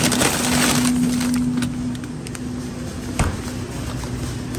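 Plastic packaging of frozen breakfast sausage packs crinkling and rustling as they are grabbed off a freezer shelf, over a steady low hum that fades about three seconds in. A single sharp knock follows around then as the packs are handled toward the cart.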